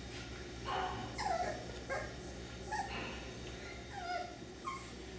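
Cockapoo puppy whimpering and yipping: a string of short, high calls, each falling in pitch, spread through the few seconds.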